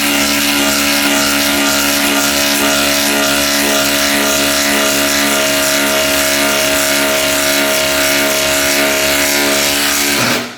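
Cordless impact driver hammering continuously as it drives a fastener under load, with a steady, even pitch; it stops abruptly near the end.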